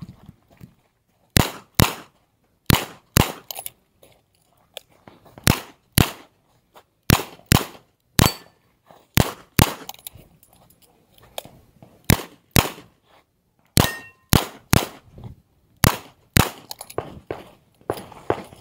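Revolver shots fired mostly in quick pairs about half a second apart. Near the middle the shooting stops for about two seconds, with small metallic clicks as the revolver is reloaded, then the pairs of shots resume.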